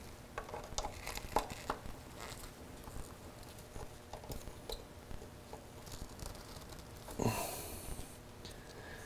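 Small metallic clicks and taps as needle-nose pliers grip and bend the tab of a steel split pin in a motorcycle's rear axle castle nut. About seven seconds in comes a brief scraping rasp.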